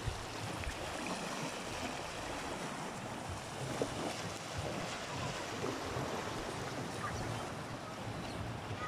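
Small waves breaking and washing up onto a sandy shore, a steady wash of surf with some wind on the microphone.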